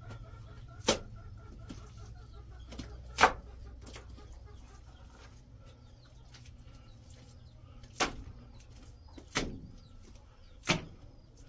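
Five sharp knocks, unevenly spaced, over a low steady hum.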